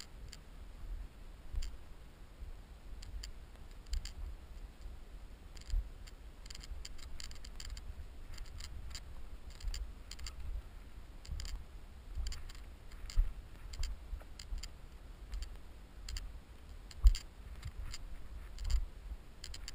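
An airsoft player moving over dry, stony ground: scattered clicks and soft knocks from his gear, his replica rifle and his footsteps, picked up by a body-worn camera. The sharpest knock comes a few seconds before the end.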